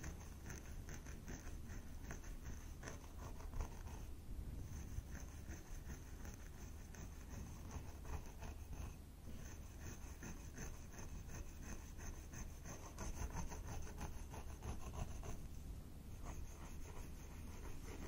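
A thin pointed tool scratching along the scalp and parting long hair, in runs of quick scratchy strokes with a few short pauses.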